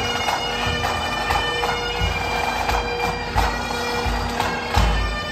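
Bagpipes playing a tune over their steady drones, with a few low thumps underneath.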